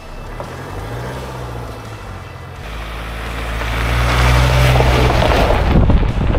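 Car driving, with steady engine and road noise that grows louder over the second half, then cuts off abruptly near the end.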